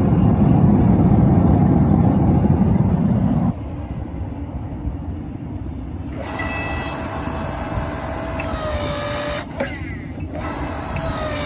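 Log-splitter forging press running: a loud rushing noise for the first few seconds, then the steady whine of its hydraulic pump motor, whose pitch sags briefly near the end as the ram squeezes hot steel.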